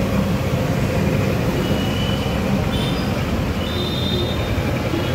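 Steady street-stall background noise: an even low rumble with a hiss over it, and a few short, thin high squeaks in the second half.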